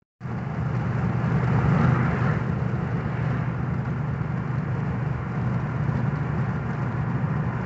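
A car driving along a road: steady engine and tyre noise.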